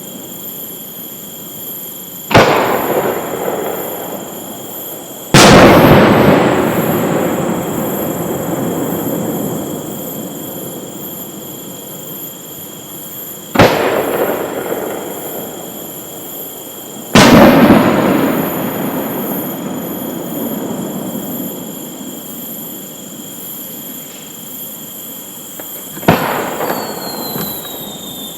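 Aerial firework shells bursting five times, each sudden boom followed by a long rolling echo that fades over several seconds.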